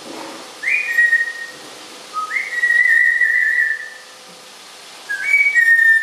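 African grey parrot whistling three times. Each whistle starts with a short higher note and drops to a held steady note. The middle whistle is the longest and loudest.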